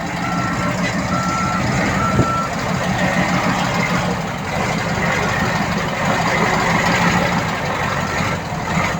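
Reversing alarm on a piece of earthmoving machinery beeping three times, about one beep a second, with a faint fourth beep near the end. A loud diesel engine runs underneath.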